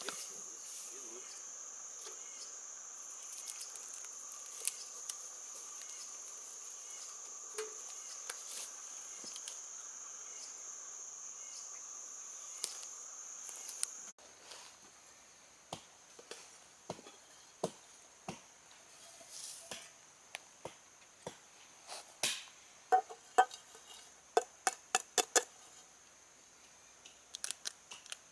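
Insects chirring steadily in a continuous high-pitched drone. About halfway through, the level drops suddenly and the chirring turns faint, and a run of sharp clicks and taps follows, thickest near the end.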